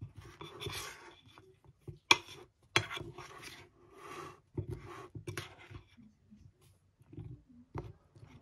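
Wooden spoon stirring and scooping soft scone pieces in a thick creamy topping in a ceramic bowl: wet squelching and scraping, with a few sharp knocks of the spoon against the bowl, the loudest about two seconds in.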